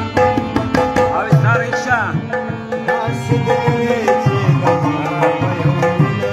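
Instrumental passage of a Pashto ghazal: a harmonium sustaining chords and melody over tabla playing a quick, steady rhythm with deep bass strokes. A melodic line bends up and down in pitch about a second in.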